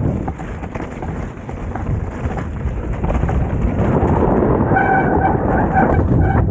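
Wind rushing and rumbling across the microphone while on the move. Near the end comes a brief run of short, high squeaks.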